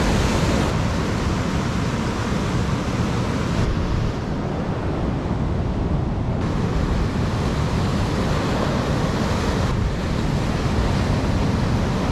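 Ocean surf breaking and washing up the beach, with wind buffeting the microphone. The sound changes abruptly several times.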